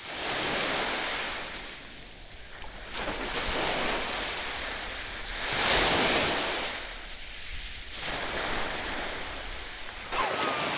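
Small sea waves washing on a beach, a steady surf hiss that swells and eases, loudest about halfway through. Near the end, sharper splashing as someone runs through the shallows.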